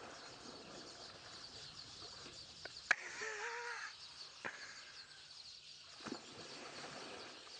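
Birds chirping in the background, with a sharp click about three seconds in followed by a short, wavering call lasting under a second.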